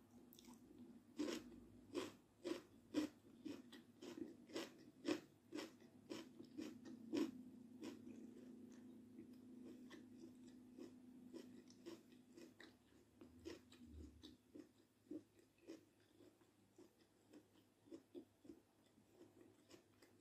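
Close-miked chewing of a mouthful of food, with crisp, moist crunching clicks about twice a second. The chewing is loudest in the first seven seconds or so, then grows softer and sparser.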